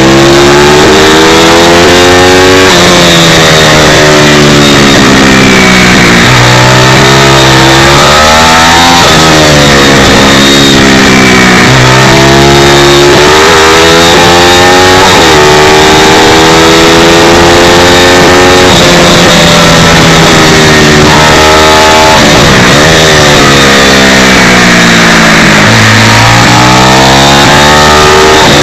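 Pit bike's small single-cylinder engine ridden hard on track, heard from on board: the pitch climbs, drops sharply at each upshift and falls away as it slows for corners, over and over. It is very loud, with wind rushing over the microphone.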